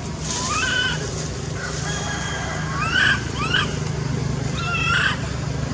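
Macaques calling in the trees: about four short, rising, whistle-like cries, one near the start, two close together in the middle and one near the end, over a steady low hum.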